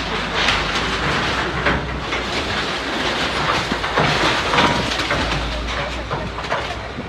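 Bulldozer demolishing a building: a diesel engine running steadily under a dense, continuous clatter and scraping of metal and debris, with many short knocks throughout.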